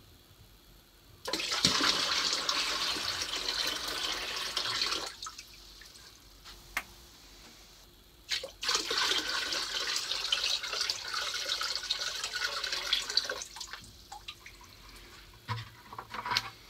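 Water poured from a plastic bucket into a plastic Igloo cooler, filling it: two pours of about four and five seconds with a short pause between, and a few light knocks in the gaps.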